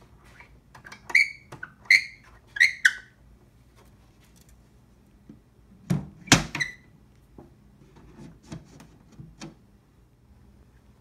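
A small brass catch on a walnut display case clicking sharply three times, each click with a brief metallic ring, then the case's glass-fronted door shutting with a thump and a short ring, followed by a few softer knocks on the wooden frame.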